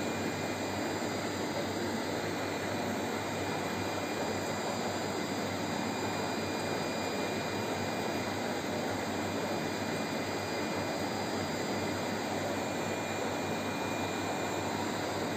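Steady rushing noise of running aquarium equipment, with a faint high-pitched whine over it.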